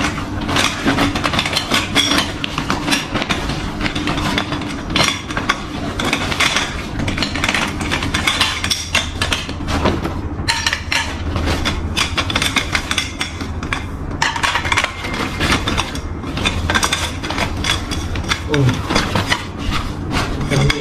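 Metal tent frame poles clattering and clinking against each other as they are pulled out of their bag and set down on the floor: a busy run of short knocks and clinks, with the bag's fabric handled in between.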